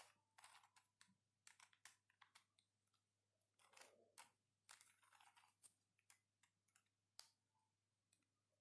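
Faint, scattered clicks of a plastic 5x5 Ultramorphix twisty puzzle as its layers are turned, over near silence.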